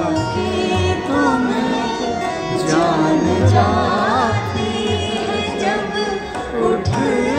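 Live ghazal: a woman sings an ornamented, gliding melody into a microphone over tabla and instrumental accompaniment, amplified through large PA loudspeakers, with low drum strokes recurring in short clusters.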